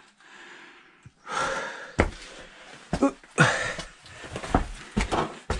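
A person with a backpack squeezing through a narrow rock cleft: two stretches of rustling, scraping and hard breathing, with several sharp knocks as the pack, feet or hands bump the rock.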